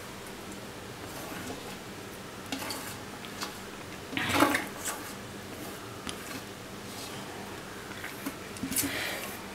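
Hand mixing chopped onion and mint leaves into coarse ground rice and chana dal batter in a steel bowl, with a few short scrapes and knocks of a plate against the bowl's rim, the loudest about four seconds in.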